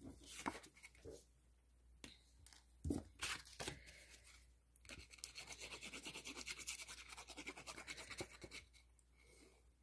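Faint paper handling with a light knock, then the fine-tip applicator of a bottle of liquid craft glue scratching rapidly and evenly across the back of a sheet of pattern paper for about four seconds as glue is drawn on.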